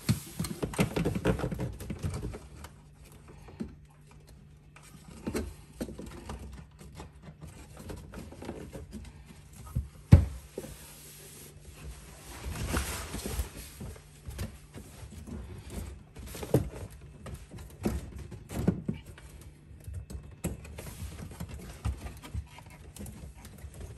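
Handling noise from fitting a plastic push-fit SureStop valve onto 15 mm copper water pipe: scattered knocks, clicks and rustling, the sharpest knock about ten seconds in.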